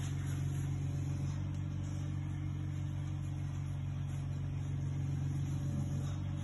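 A steady low mechanical hum with a hiss above it, even throughout.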